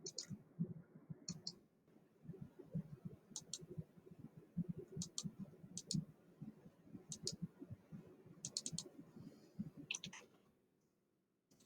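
Computer mouse clicking faintly, each click a quick press-and-release pair, every second or two, among a run of soft low knocks; the sounds die away shortly before the end.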